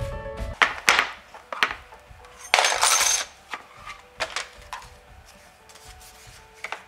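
Tabletop crafting sounds: paper and small tools being handled, in a few short knocks and rubs, with one longer scraping rub about two and a half seconds in. Soft background music plays underneath.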